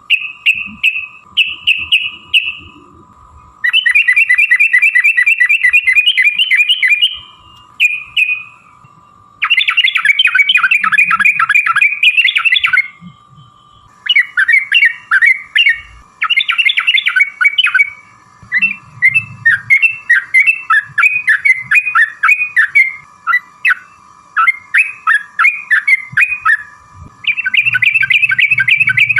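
Yellow-vented bulbul (trucukan) singing in long, fast chattering runs of notes, the kind of call used as a lure to set other trucukan singing, broken by shorter phrases and brief pauses. A faint steady high tone runs underneath.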